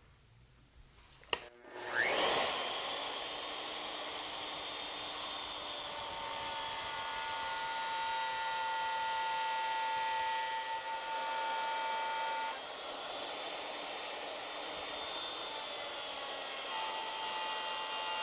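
A wood router on an ornamental milling machine is switched on with a click, spins up with a rising whine about two seconds in, then runs steadily for the moulding cut. Its whine steps in pitch a few times as it works.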